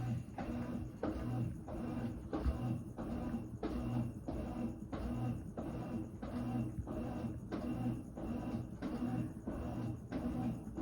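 Brastemp 17 kg washing machine churning a small, sudsy load of whites in its wash cycle. The drive swings back and forth in an even rhythm of about two strokes a second, with the water sloshing.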